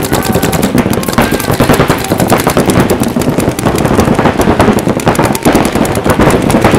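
Paintball markers firing rapid, continuous strings of shots during a speedball game.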